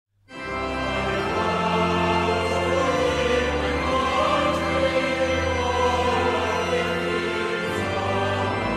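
Background choral music, a choir singing long held notes over a low sustained bass, fading in just after the start.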